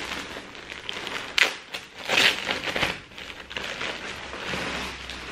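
Packaging rustling and crinkling as a knit sweater is unwrapped, with a sharp crackle about a second and a half in and the loudest burst just after two seconds.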